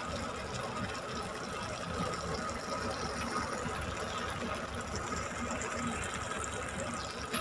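Corned beef and diced potatoes simmering in a frying pan: a steady bubbling sizzle of the cooking liquid as the potatoes cook through.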